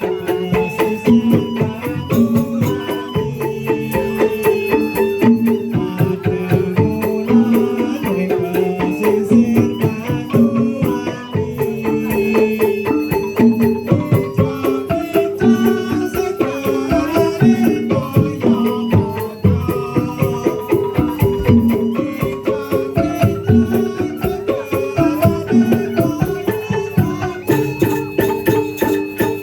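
Traditional folk music: a dense, unbroken run of short pitched percussion notes over drums.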